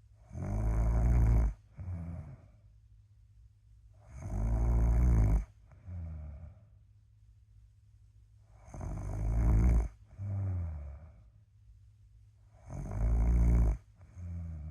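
A person snoring in a slow, even rhythm: four loud snores about four seconds apart, each followed by a shorter, softer snore on the next breath.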